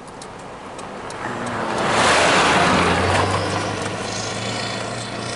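A car driving past on the road, its tyre and engine noise swelling to a peak about two seconds in and then slowly fading, with a low engine hum lingering.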